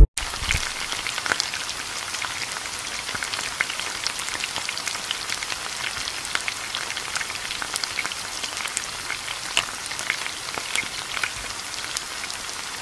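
Chicken and vegetable tagine sizzling and simmering in its oily sauce on the hob, a steady hiss full of small crackling pops.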